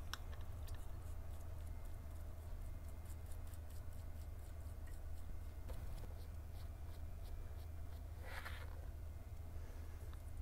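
Faint scratching and tapping of a glue-dispenser brush spreading contact cement on a shoe's heel seat and heel, with one short, louder scrape near the end. A steady low hum runs underneath.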